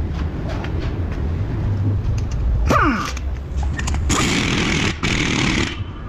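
A power tool held against the car's front wheel hub runs loudly in two bursts, starting about four seconds in and breaking briefly near five seconds. A short falling whine comes near the three-second mark, over a steady workshop hum.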